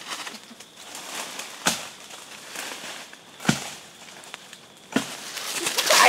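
Three sharp chopping knocks on wood, about a second and a half apart, as a tree stump holding a wild bee nest is cut into. Near the end, loud rustling and crackling of dry leaves and brush begins as someone moves off quickly through the undergrowth.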